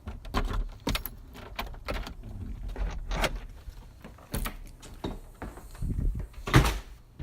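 Keys jangling and a door being handled: an irregular string of clicks, rattles and knocks, with the loudest knock near the end.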